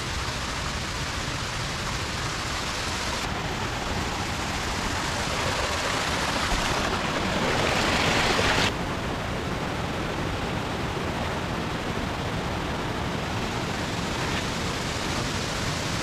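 Steady rush of flowing water from a stream pouring over rocks. About seven seconds in it swells louder for nearly two seconds, close to a small cascade, then drops back suddenly.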